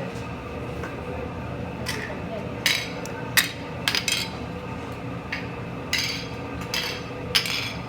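Metal utensils clanging on a hibachi griddle: about seven sharp, irregular strikes with a short metallic ring, over a steady background hum.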